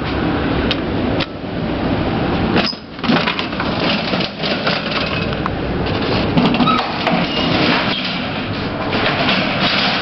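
Old hospital service lift in operation: steady mechanical running noise with repeated clunks, knocks and rattles.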